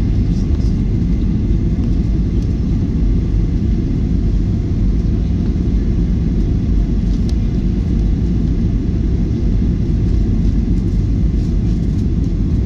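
Steady low rumble of engine and airflow noise inside the cabin of a Boeing 737-900ER on final approach, with its CFM56-7B turbofans throttled back for landing.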